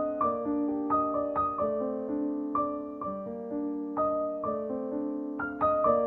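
Background piano music: a gentle, flowing piece with single notes struck about twice a second, each ringing and fading into the next.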